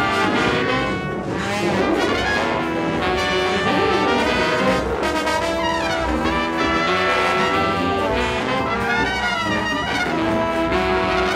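Large mixed ensemble of brass, reeds, flutes and strings playing a dense passage of many overlapping held notes, with trombones and trumpets to the fore and several pitches sliding up and down.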